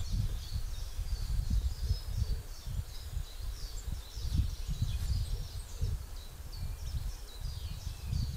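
Small birds singing, a continual run of short high chirps and trills, over wind rumbling on the microphone.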